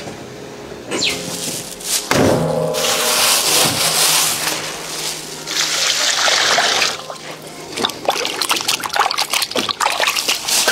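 Tap water pouring into a stainless steel bowl of cut swamp-eel pieces, then hands scrubbing and sloshing the eel pieces in the water with many short splashes in the last few seconds.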